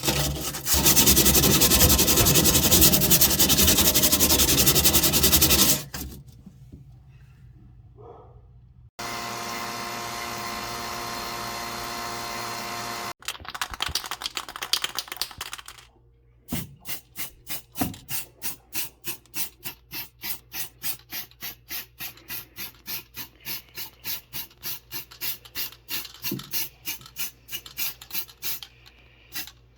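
Hand tool work, with rubbing and scraping. First comes a loud, even scraping for about five seconds. After a quieter gap there is a steady humming stretch, then irregular rubbing. From about halfway it settles into regular back-and-forth strokes, about two a second.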